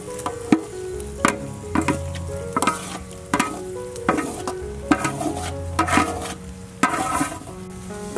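A spatula scraping and knocking against a metal bowl and wok as sliced sea snail meat is tipped into hot oil with aromatics: sharp clatters about once a second over steady sizzling. Background music plays underneath.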